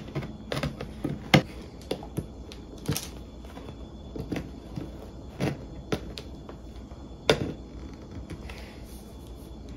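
Scattered sharp clicks and knocks of hand tools and metal parts being handled: pliers working the ears of a dishwasher's metal mounting bracket, with the loudest knock about seven seconds in.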